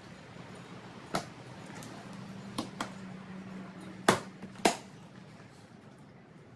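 Electric drill motor running with a steady low hum as it starts a hole in a Harley Tour-Pak lid. There are a few sharp clicks and knocks, and the motor stops with a knock about four and a half seconds in.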